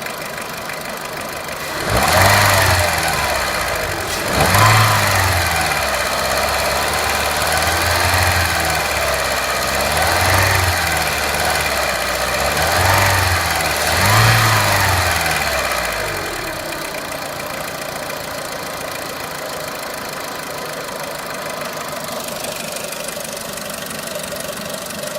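Renault Clio III's 1.4-litre 16-valve four-cylinder petrol engine idling, then revved up and let fall back about six times in quick succession before settling back to a steady idle.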